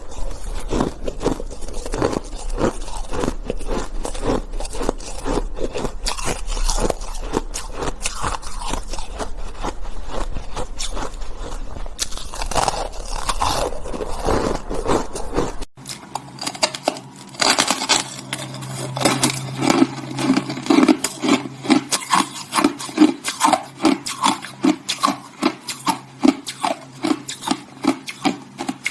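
A person crunching and chewing hard shaved ice close to the microphone, a dense run of crunches. About halfway through the low hum underneath drops away and the crunches turn regular, about two a second.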